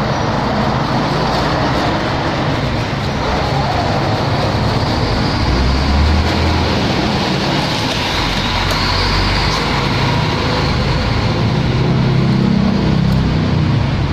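Steady noise of passing road traffic, with a low engine rumble that swells about six seconds in and again near the end as heavier vehicles go by.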